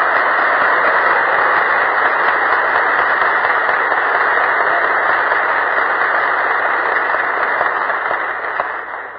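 Audience applauding steadily, heard through an old recording with a narrow band and no high end. It fades away near the end.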